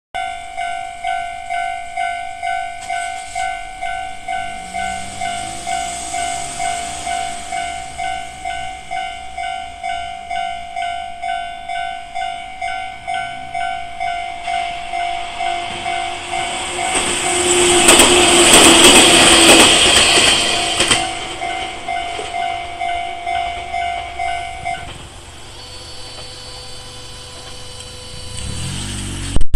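Japanese level-crossing alarm bell ringing steadily, about two strikes a second. A train passes over the crossing from about 17 to 21 seconds in, its wheel and running noise loudest and drowning the bell. The bell stops about 25 seconds in.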